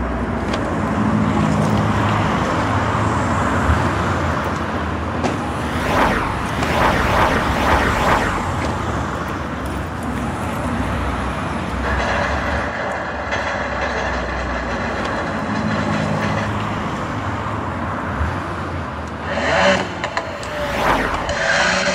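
Road traffic: cars running and driving past, with louder passing swishes about six to eight seconds in and again near the end.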